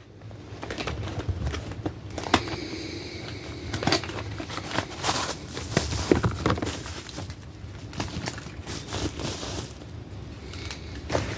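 Rustling and crinkling with scattered clicks and knocks as small pieces of gear are handled and packed into the pouches of a survival kit bag.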